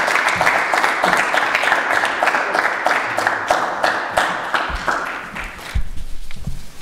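A small audience applauding. The clapping thins out and dies away about five and a half seconds in, with a couple of low thumps near the end.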